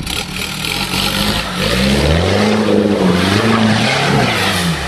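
Off-road buggy's engine revving hard as it ploughs through a mud pit, its pitch rising and falling several times, over a hiss of spraying mud and water. The revving starts about a second and a half in and is the loudest sound.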